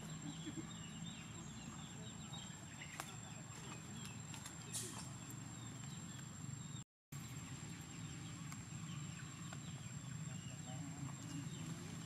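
Outdoor background with a steady low hum and many faint, short chirping animal calls, a single click about three seconds in, and the sound cutting out completely for a moment around seven seconds in.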